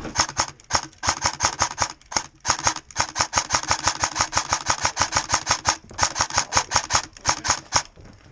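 Airsoft rifle firing on full auto, a fast string of sharp shots at about nine a second, in several bursts broken by short pauses.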